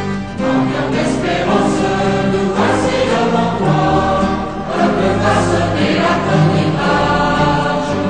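Choral music: a choir singing slow, held chords over a low bass line.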